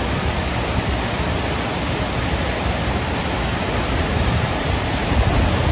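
Steady rushing of the FlowRider surf simulator's pumped sheet of water pouring up and over its padded ramp under a bodyboarder.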